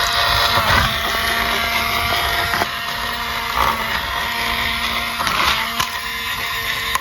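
Small battery-powered toy motor whirring steadily, with a few light clicks.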